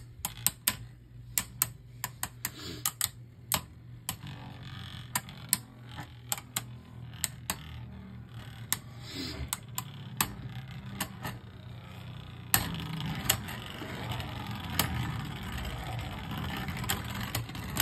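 Two plastic Beyblade Burst spinning tops, Orpheus and Unicrest, spinning in a plastic stadium and clacking sharply each time they collide, at irregular intervals. From about two-thirds of the way in, a steadier scraping noise joins the clacks.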